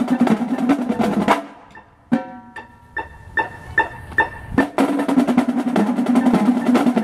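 Drumline playing marching snare drums in fast, dense unison passages and rolls. After about a second and a half it drops to a short break with a few separate accented hits, then fast playing picks up again for the last couple of seconds.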